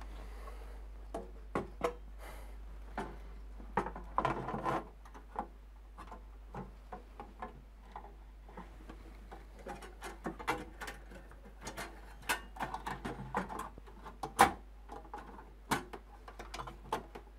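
Irregular clicks, taps and short scrapes of small metal computer parts being handled and fitted into a small PC case, with a couple of longer rattling stretches.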